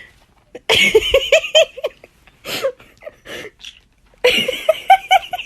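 Pet parrot mimicking a ringing phone: two bursts of rapid, evenly repeated pitched trilling, the second starting near the end.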